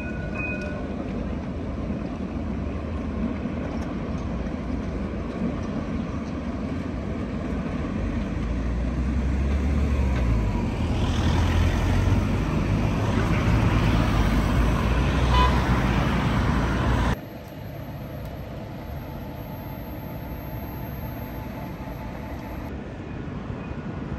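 Street traffic with a tram going by: a low rumble builds over several seconds, then cuts off abruptly, leaving quieter street noise. A brief high toot sounds at the very start.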